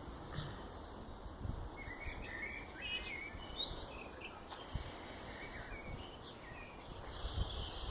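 Wind rumbling on the microphone, with a few short bird chirps about two to four seconds in and a soft hiss near the end.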